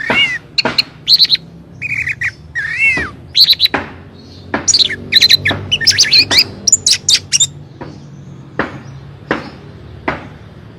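Orange-headed thrush singing a loud, varied song of slurred whistles and quick high notes for about seven seconds, then giving a few single sharp call notes spaced apart.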